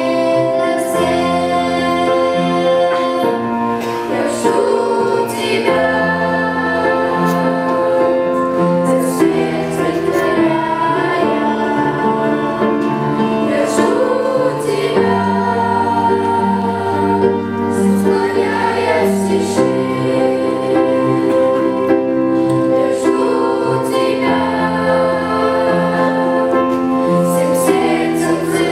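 Children's choir singing a Russian-language gospel song over instrumental accompaniment with a steady, sustained bass line.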